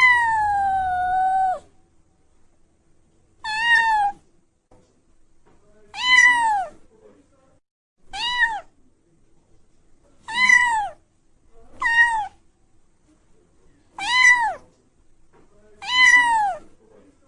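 A kitten meowing over and over: high-pitched meows that rise and then fall, about one every two seconds, eight in all. The first is the longest.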